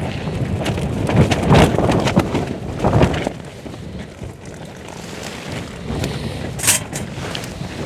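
Strong, gusting wind buffeting the microphone, rising in loud gusts about one and a half and three seconds in.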